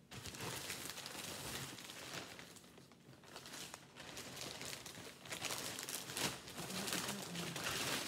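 White plastic poly shipping mailer crinkling and rustling as it is handled and opened, getting louder near the end.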